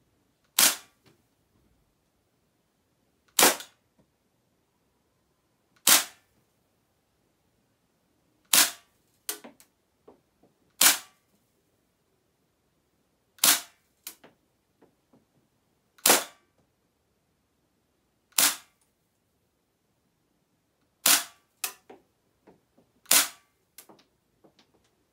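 Airsoft H&K USP pistol firing single shots: a sharp crack every two to three seconds, about a dozen in all, with fainter clicks between some of them.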